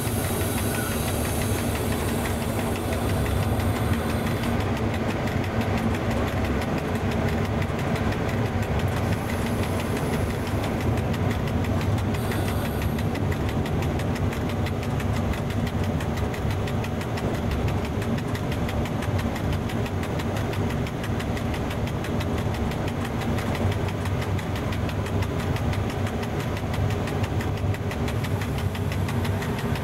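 Steady running noise inside the cab of an FS E.656 electric locomotive under way: a loud low rumble from the locomotive and rails with a fast, even vibration running through it.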